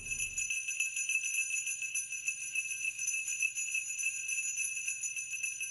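Sleigh bells jingling steadily in a dense, bright shimmer, with no break.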